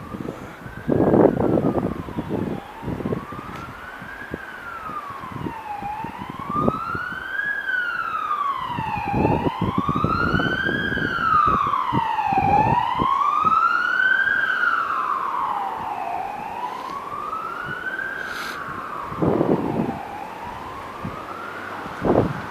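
Emergency vehicle siren wailing, its pitch rising and falling slowly about every three and a half seconds, growing louder toward the middle and fading afterwards as the vehicle passes. Several short, louder rushes of noise break in over it.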